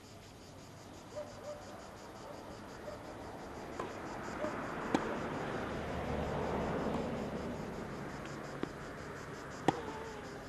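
Sharp pops of a tennis ball being struck, a few times, the loudest near the end, over a steady high insect buzz. A low rushing noise swells and fades in the middle.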